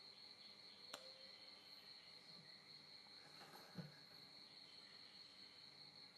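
Faint, steady high-pitched trilling of insects, likely crickets, with a single sharp click about a second in and a brief low thud just before four seconds.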